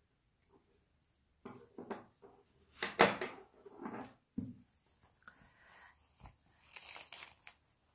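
Cotton embroidery fabric in a wooden hoop rustling and crinkling as it is handled and turned over, in several short scrapes with the loudest about three seconds in and another rustle near the end.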